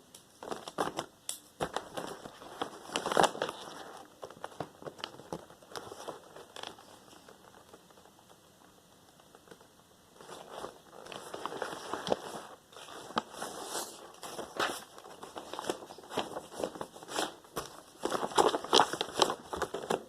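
Close handling noises: scattered clicks and crinkling rustles, as of paper and small things being handled next to the microphone, with a quieter pause midway and busier rustling near the end.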